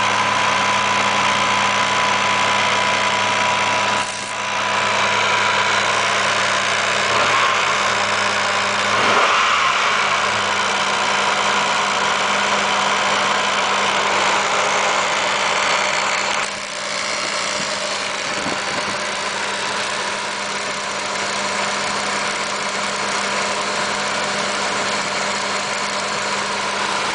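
1986 Nissan 300ZX Turbo's 3.0-litre turbocharged V6 idling with a ticking, buzzing noise, which the owner suspects comes from the auxiliary air control (AAC) valve. A steady high whine is heard in the first few seconds; the sound changes about four seconds in and again about sixteen seconds in.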